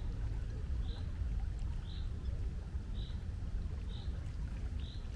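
Steady low rumble of wind and sea, with a short high chirp repeating about once a second.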